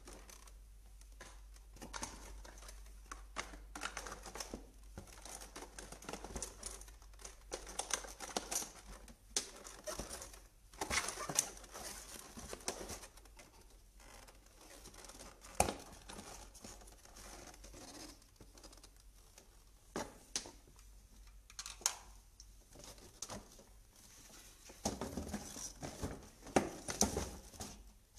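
Irregular rustles, clicks and small knocks of plastic hair-styling attachments and packaging being handled in a cardboard box, busier and louder near the end.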